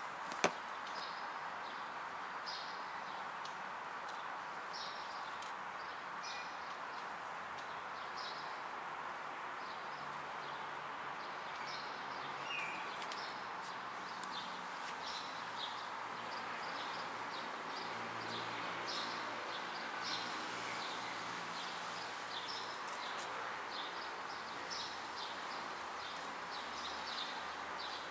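Many short, high-pitched chirps repeating irregularly over a steady hiss, with one sharp click about half a second in.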